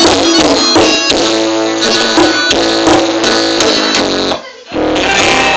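Loud music with strummed guitar and drums, played through a car stereo. It drops out briefly for a moment near the end, then resumes.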